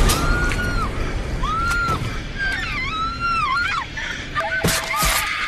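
A woman whimpering and wailing in terror: a string of short, high, arching cries about a second apart, with a sudden loud noise near the end.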